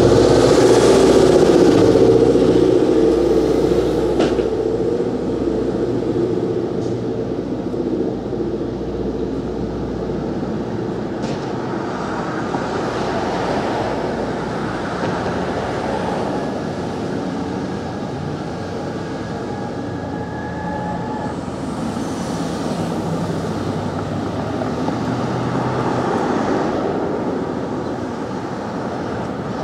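City street traffic. A vehicle's engine is loud and close at first and fades over the first four seconds, then cars keep passing, the noise swelling and easing as each one goes by.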